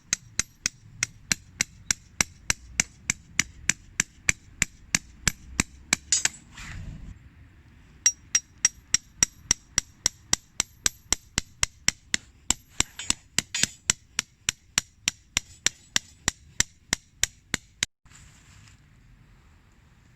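A hammer driving tent pegs with quick ringing strikes, about four a second, in two long runs with a short pause near the middle.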